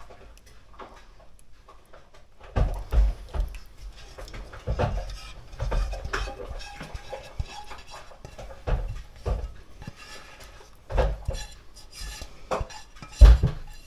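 A bowl being scraped out into a stainless steel mixing bowl, with irregular clinks and knocks of utensil and bowl against the metal; the loudest knock comes near the end.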